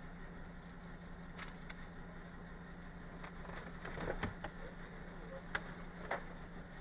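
Lorry's engine idling with a steady low hum, heard from inside the cab, with a few light clicks and knocks, the loudest about four seconds in.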